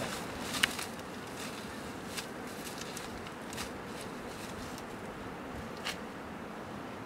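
Dry grass and leaves crackling and rustling as they are gathered by hand and pressed into a wicker basket, with a few sharp crackles standing out over a steady background hiss.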